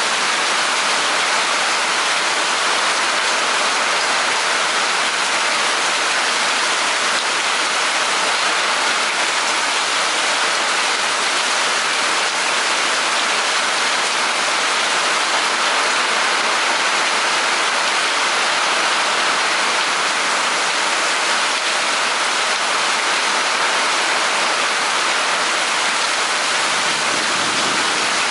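Heavy thunderstorm rain falling steadily, an even, unbroken hiss.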